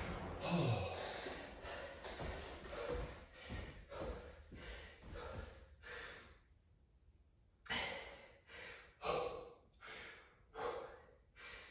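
A man breathing hard after an all-out air bike effort, deep heavy breaths about one a second, with a short pause past the middle before louder breaths resume. In the first second the Rogue Echo bike's fan whirs down.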